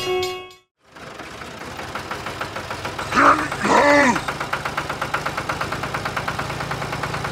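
Tractor engine running from about a second in, idling with a fast, even knocking chug. Two short tones that rise and fall in pitch come about three and four seconds in and are the loudest part.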